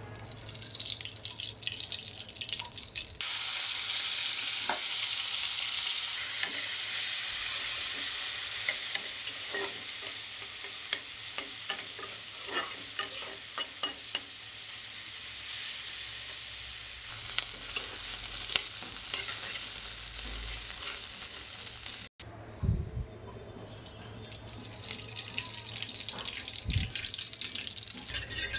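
Small prawns frying in hot oil in a pan, sizzling loudly, with a spatula clicking and scraping against the pan as they are stirred. The sizzle jumps up suddenly about three seconds in and gradually dies down. Near the end, oil sizzles more quietly with a couple of low thumps.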